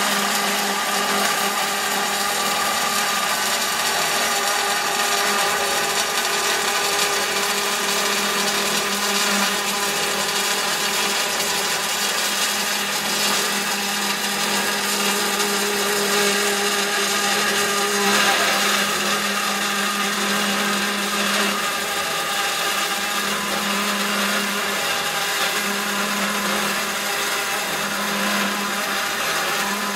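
Band saw cutting through a metal pole: a steady motor hum under a continuous rasp of the blade's teeth on metal. There is a brief louder surge a little past halfway, and the hum swells and fades in pulses near the end.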